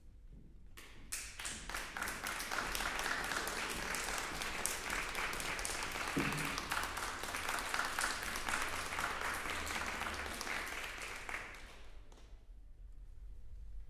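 Audience applauding in a concert hall. The clapping starts about a second in, holds steady and dies away near the end.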